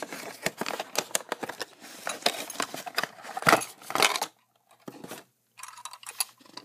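Rapid, irregular clicks, rattles and rustles of a 1/64 diecast delivery truck being handled out of its cardboard box packaging. They are busiest for about the first four seconds, then stop, with a few more handling clicks near the end.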